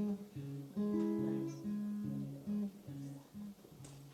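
Acoustic guitar picking the instrumental intro of a song live, single notes one after another in a steady rhythm before the vocals come in.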